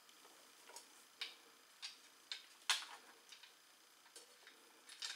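Faint, light clicks and ticks, roughly one every half second, as a crossbow is handled and cocked by hand, the loudest click near the middle.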